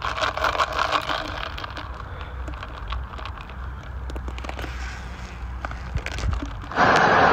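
Crackling and clicking from a clear plastic cup being handled and drunk from, over a steady low rumble of wind on the phone's microphone. A loud rushing noise sets in near the end.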